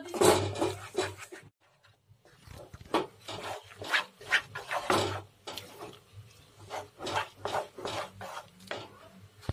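Wooden spatula scraping and stirring thick besan halwa around a pan, an irregular run of rasping strokes with a short pause about one and a half seconds in. The halwa has cooked down to the stage where it starts to pull away from the pan.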